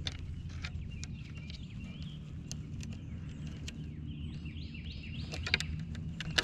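Outdoor open-water ambience with a steady low rumble and scattered light clicks from the fishing rod and reel being handled. A bird gives a quick run of about four falling chirps a little past the middle.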